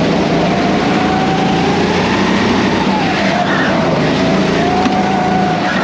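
Go-kart running on a track, its motor note rising and falling as it speeds up and slows through the corners.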